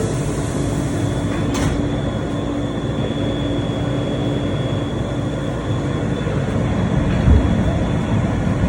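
R143 subway train running: a steady rumble with a level hum for the first five seconds. A sharp click about a second and a half in, and a thump about seven seconds in.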